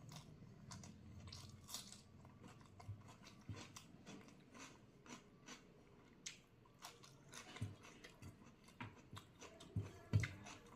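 A person chewing and biting food, with many small wet clicks and crunches. The loudest crunches come near the end.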